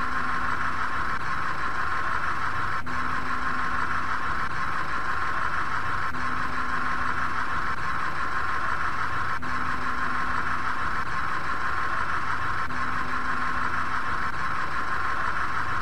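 A steady hiss, even in loudness, with a faint low hum about a second long that returns about every three seconds, like a looped background track.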